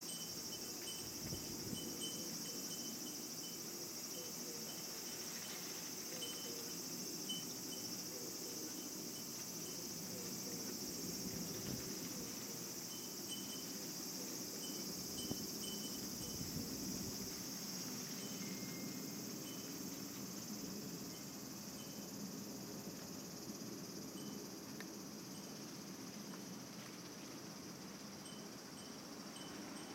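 Steady high-pitched insect chorus with short chirps repeating on and off, over a faint low background rumble.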